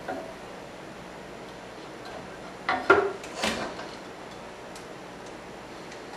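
Wooden pieces handled and set down on a scroll saw's metal table: a sharp knock about three seconds in, then a softer clatter half a second later, over steady faint background noise.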